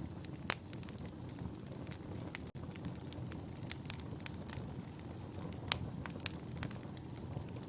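Wood fire burning in a fireplace: a steady low rush of flame with irregular sharp crackles and pops, the loudest about half a second in and near six seconds in.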